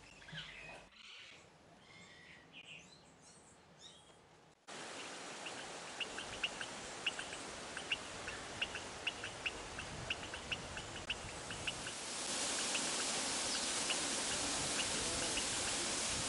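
Natural ambience: short high chirps, likely birds, repeating several times a second over the steady hiss of flowing water. The water grows louder about three quarters of the way through. The first few seconds are faint, with only scattered chirps.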